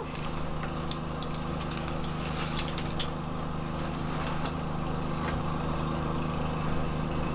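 A motor running steadily, a constant engine-like drone with a low hum, with a few light clicks and knocks from dive gear being handled.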